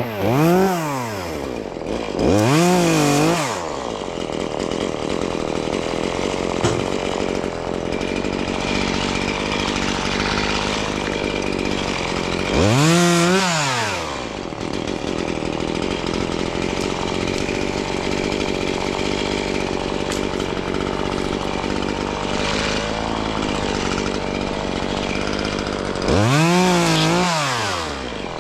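Chainsaw engine idling steadily, revved up and let back down four times: twice in the first few seconds, once about 13 seconds in, and once near the end.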